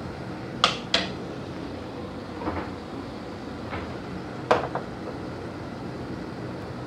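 A few sharp knocks and clicks of kitchen things being handled while cooking, the loudest about half a second in, a second in and four and a half seconds in, over a steady low background hiss.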